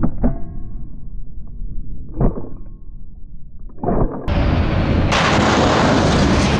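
Sheet-metal gun cabinet hit by a pickup truck: a crash at the start and a second clang about two seconds in, each leaving a metallic ringing. From about four seconds in, a steady rush of the Ford F-350 pickup driving hard on a dirt track.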